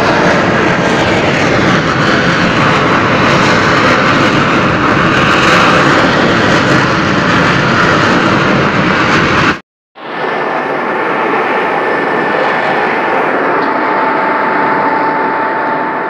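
Steady roar of fire and gas blowing out of the top of a blast furnace, a jet-like rush of noise. The uploader thinks a sudden slip in the furnace may have caused the eruption. It cuts out briefly about ten seconds in and resumes with less bass, and a thin steady tone rides over it near the end.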